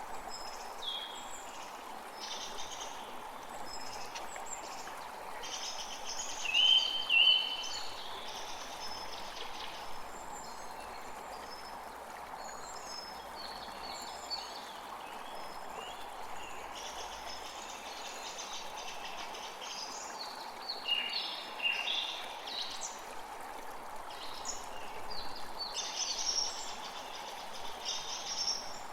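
Creek water flowing steadily, with forest birds chirping and singing over it throughout. The loudest bird sounds are two short whistled notes about seven seconds in and a quick run of calls a little after twenty seconds.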